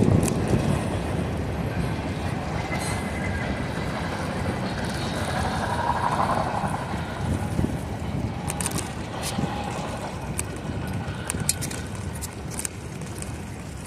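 Wind rushing over a phone microphone and bicycle tyres rolling on wet pavement during a ride, a steady low rumble with scattered sharp clicks in the second half.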